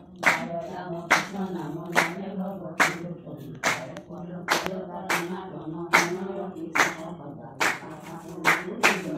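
Women chanting Assamese devotional naam unaccompanied, in a slow drawn-out melody, with hand claps keeping an even beat a little faster than once a second.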